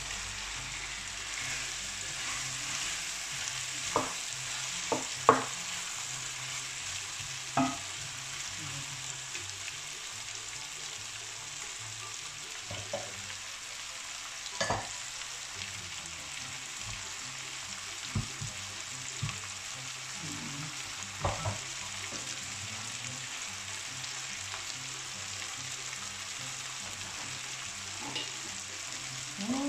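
Diced chicken and freshly added courgette slices frying in an oiled pan: a steady sizzle, broken by a few sharp knocks of a wooden spatula against the bowl and pan, the loudest about five seconds in.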